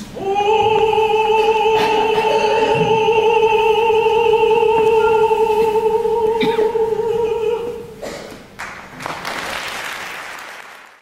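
A contralto voice holding one long final note with vibrato for nearly eight seconds, then a short spell of audience applause before the sound cuts off.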